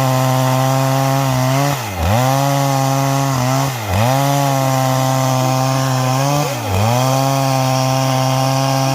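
Two-stroke chainsaw with a square-ground chain ripping wood lengthwise along the grain, its engine held at high revs. Four times it dips sharply in pitch and recovers at once.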